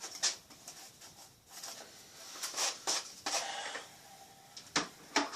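Handling noises from the drill, holesaw and drilled piece of plastic: a series of separate clicks, knocks and short scrapes, with no drilling.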